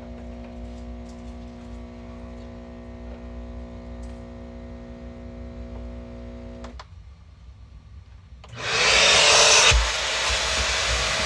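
Hart 3-in-1 wet/dry vac: the solution pump hums steadily, then shuts off with a click about seven seconds in. Under two seconds later the vacuum motor switches on with a loud rush of air, its whine rising briefly as it spins up to speed.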